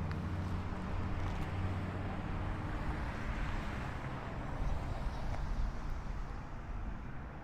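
A motor vehicle's engine running with a steady low hum that fades about halfway through, over constant outdoor traffic noise.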